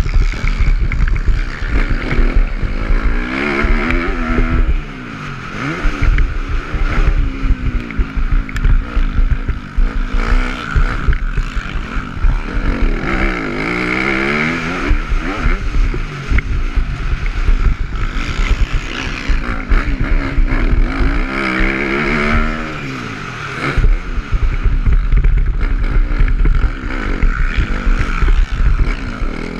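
Dirt bike engine heard from on board, revving up and falling back again and again as the rider works the throttle through corners and straights. A heavy low rumble runs throughout, and the engine eases off briefly twice.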